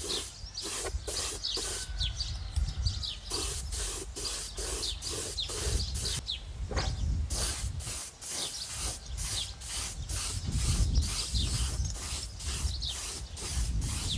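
Compressed-air gravity-feed spray gun spraying paint, hissing in quick pulses of about two or three a second, with a pause of about a second a little past six seconds in.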